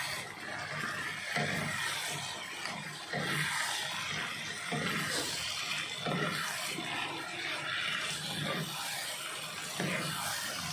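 Fried fish simmering in a thin tamarind gravy in a wok, the liquid bubbling and sloshing as a wooden spatula turns it, with irregular spatula strokes about once a second.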